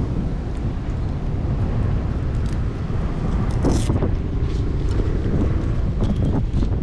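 Wind rumbling steadily on the microphone, with the rustle and clicks of hands handling gear, the clearest just under four seconds in.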